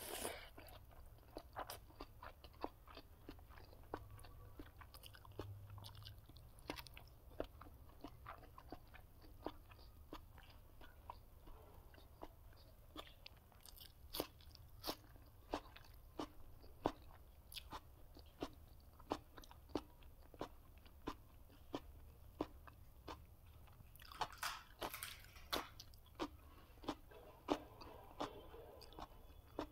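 Close-miked mukbang eating: a person chewing crisp food, with sharp crunches coming about once or twice a second and a denser run of crunches near the end.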